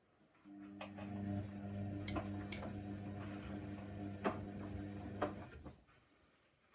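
Hoover Nextra 6 washing machine's drum motor turning the drum for about five seconds, a steady hum with sharp clicks and knocks from the load tumbling, then stopping.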